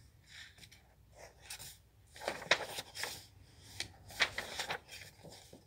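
Picture book being handled and opened, its cover and pages rustling in several short bursts, the loudest about two and four seconds in.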